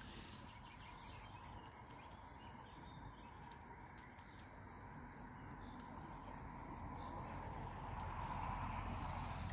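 Mute swans and cygnets dabbling for food in shallow water at the bank: faint splashing and small clicks of bills working the water, over a steady outdoor hum that grows louder toward the end.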